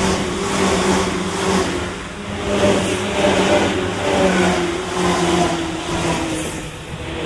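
Stainless-steel Tokyu Den-en-toshi Line electric commuter train passing close by. Its traction motors whine, falling slowly in pitch, over steady rumble and rhythmic wheel clatter on the rails.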